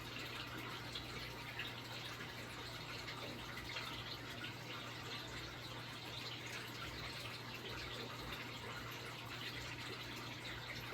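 Turtle tank filter water trickling steadily, with a steady low hum underneath.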